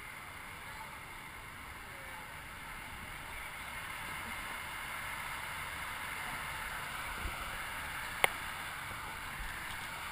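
Steady rush of lazy-river water flowing and lapping around a floating inner tube, swelling a little after a few seconds. One sharp click about eight seconds in.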